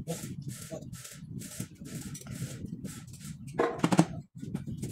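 Metal clinking of a socket and extension as they are fitted onto a main bearing cap bolt of a six-cylinder engine block, loudest about three and a half seconds in. Throughout, a steady hiss pulses about twice a second over a low hum.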